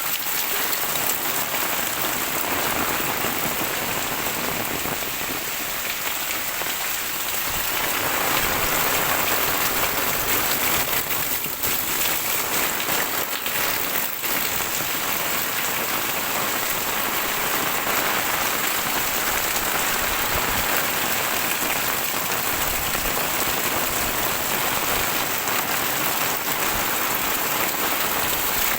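Heavy rain falling steadily, a little louder from about eight seconds in.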